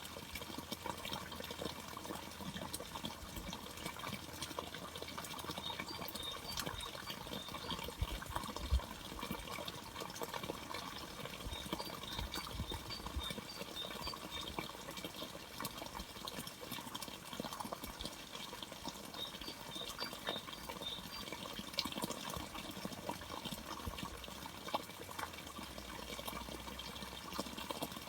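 Steady running water, with a small bird giving short runs of high chirps three times and a soft low thump about nine seconds in.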